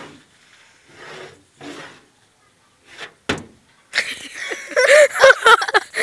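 A goat lunging and butting at close range: a sharp knock about three seconds in, then a loud scuffle with wavering cries from about four seconds on.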